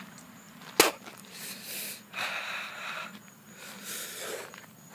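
A man breathing hard through his mouth, three long noisy breaths, in pain from the burn of a whole Trinidad Scorpion pepper. A sharp click comes about a second in.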